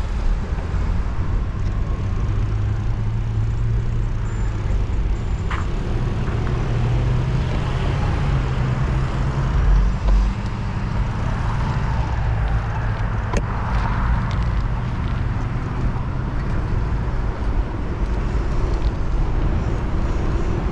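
Road traffic heard from a moving bicycle: cars going by over a heavy, steady low rumble, with a passing vehicle swelling louder from about eight seconds in. Two brief clicks come partway through.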